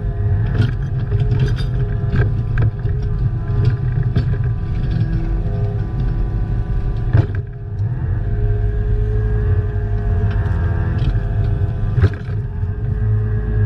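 Excavator engine running steadily under load, with scattered knocks and clanks; the loudest knocks come about seven and twelve seconds in.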